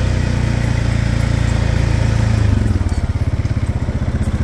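Honda Rubicon 520 ATV's single-cylinder four-stroke engine running while pushing a plow through light snow. The revs rise a little, then about two and a half seconds in drop to a lower, even chugging pulse.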